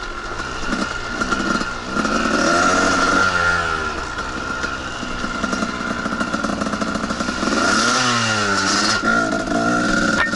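Two-stroke dirt bike engine under way on a trail, revving up and easing off: the pitch and loudness rise and fall about two seconds in and again toward the end.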